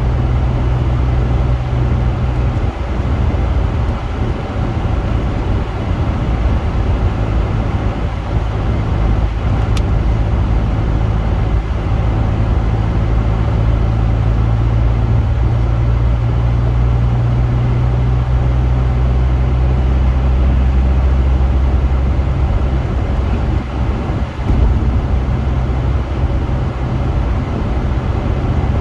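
Honda Accord on the move: a steady low engine and road rumble with an even hiss above it.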